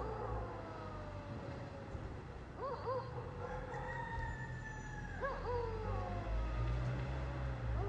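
Eerie night ambience: a steady low rumble under long, slowly falling howls, with short hooting calls in twos and threes every two to three seconds.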